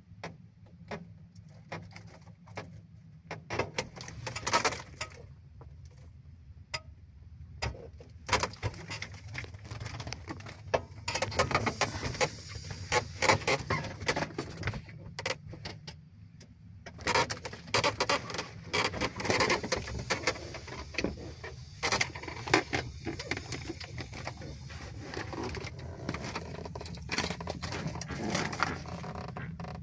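A bird trapped in a truck cab, flapping its wings and scrabbling and tapping against the glass and trim. There are scattered single taps at first, then long stretches of frantic fluttering.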